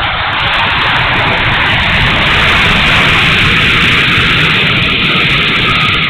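The 70mm electric ducted fan of an E-flite F-16 RC jet running at high power, heard from an onboard camera together with rushing air: a loud, steady hiss that drops away at the end.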